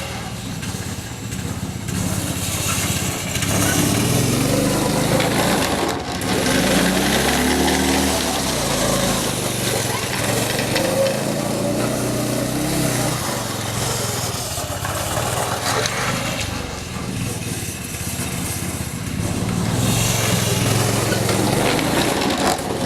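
Snowmobile engine running while being ridden, its pitch rising and falling again and again as the throttle is opened and eased off.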